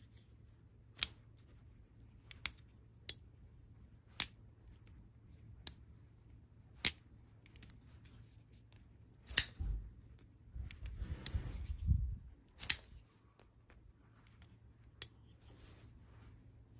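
Spyderco folding knife being flicked open by its thumb hole and closed again, its blade snapping into place with about ten sharp clicks spaced a second or so apart. A stretch of rustling handling noise comes in the middle.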